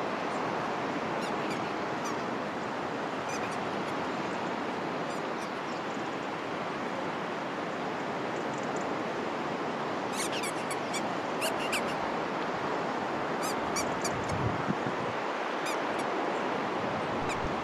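Steady rush of surf and wind, with clusters of short crisp scratching as a husky digs into wet sand with its front paws, about a second in, around halfway and again near the end.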